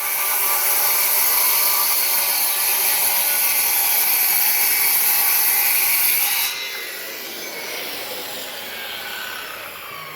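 Circular saw cutting through a scrap melamine board guided along a homemade track, running steadily loud for about six and a half seconds. Then the cut ends and the blade winds down with a falling whine.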